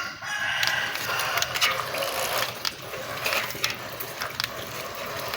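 Water splashing and churning steadily, with scattered small clicks.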